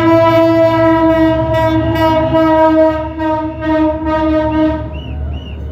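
Diesel passenger locomotive's horn sounding in one long blast of several tones together, cut off near the end, sounded in celebration. The low rumble of the passing train runs under it.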